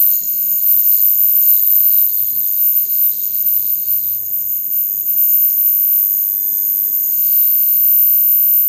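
Ultrasonic equipment running steadily: a constant high-pitched whine over a low hum, as ultrasonic cavitation breaks up an aluminium film.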